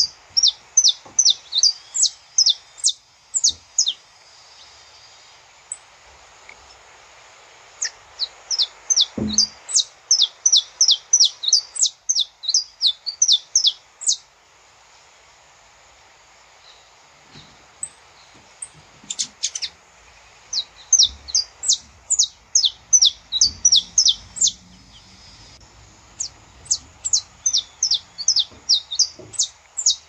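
Saffron finch (canário-da-terra) singing: bouts of sharp, high chipping notes at about three to four a second, each bout lasting a few seconds, with pauses between bouts.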